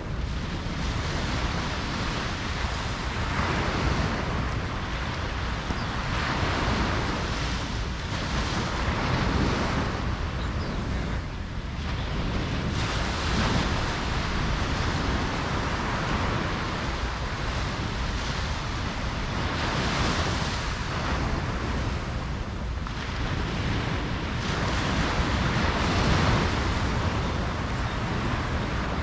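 Ocean waves breaking and washing up a beach, the surf swelling and easing every few seconds, with a steady low rumble of wind on the microphone.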